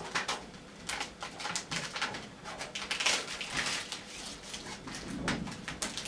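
Clear plastic transfer tape being handled and pressed onto a corrugated steel garage door: irregular rustling and crackling with small taps and scrapes.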